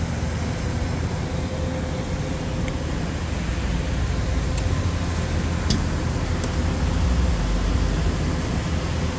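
Steady low rumble of idling vehicle engines and road traffic, with a faint steady hum.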